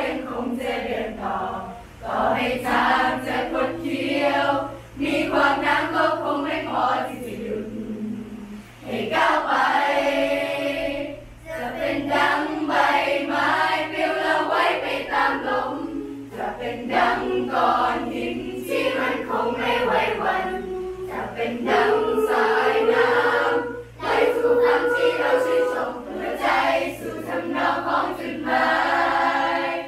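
Children's choir singing a Thai song, phrase after phrase with brief pauses between.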